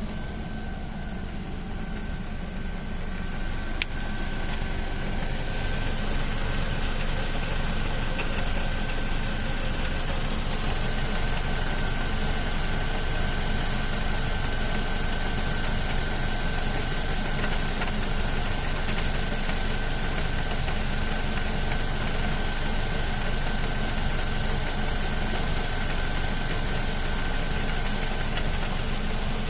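Ford Focus mk2's 2.0 Duratec four-cylinder engine idling with a rattle from the MTX-75 manual gearbox side that disappears when the clutch is pushed. A completely new clutch has not cured it, and the owner rules out the flywheel and release bearing. The sound grows louder over the first few seconds, with a single light click about four seconds in.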